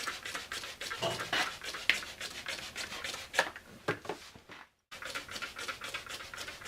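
Irregular rubbing and scraping as the removed tire is handled during the soapy-water leak check, made of many short scratches. The sound cuts out completely for a moment just after the middle.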